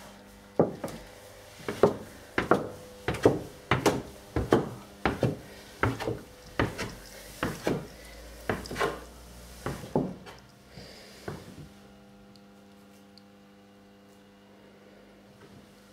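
Footsteps going down a flight of wooden stairs, a knock on each tread at a bit more than one step a second. The steps stop about three-quarters of the way through, leaving only a faint steady hum.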